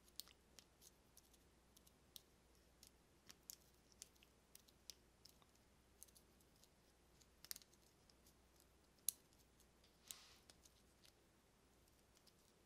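Faint, irregular small metallic clicks of a steel pick hook working the four pin tumblers of a vintage Master Lock No. 77 padlock under a pry-bar tension tool, during single pin picking, with a brief scrape about ten seconds in.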